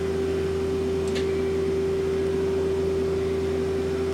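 Mazak Quick Turn Nexus 250-II CNC turning center running under power with a steady hum and one constant mid-pitched tone while its tailstock is advanced and retracted. A faint click comes about a second in.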